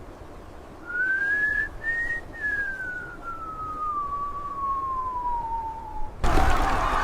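A single whistled tone that rises briefly, then slides slowly down in pitch over about four seconds. About six seconds in, a loud rush of noise cuts in.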